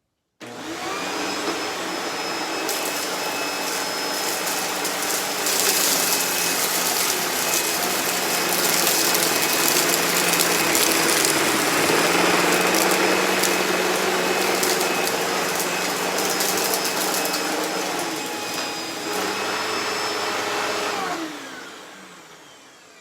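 Hoover Deluxe Elite Rewind upright vacuum switched on and running steadily while it is pushed over shredded paper, with a crackle of paper bits passing through. About 21 seconds in it is switched off and the motor winds down with a falling whine.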